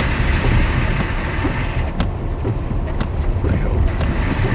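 Wind buffeting the microphone, a steady low rumble, with a couple of sharp clicks about two and three seconds in.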